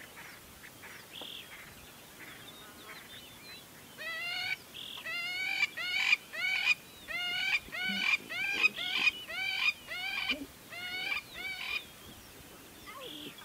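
A series of short pitched animal calls, each arching up and then down, repeated about once or twice a second, starting about four seconds in and stopping near the end, over faint chirping.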